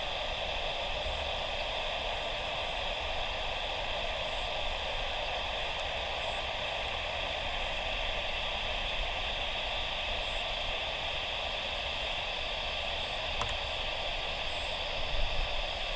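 Steady hiss of static from an air traffic control radio receiver between transmissions.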